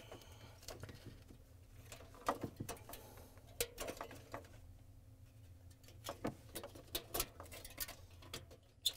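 Scattered light clicks and taps of a wire retaining clip being worked by gloved hands onto a refrigerator evaporator's line, metal against the aluminium fins and tubing; the sharpest click comes near the end.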